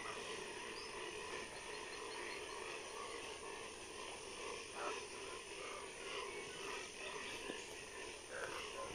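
A steady, dense chorus of many animals calling at once, with scattered short chirps standing out over it.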